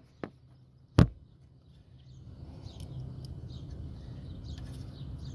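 Handling noise while a wire is worked onto a relay pin at a car's fuse box: a sharp click about a second in, then a faint low rumble.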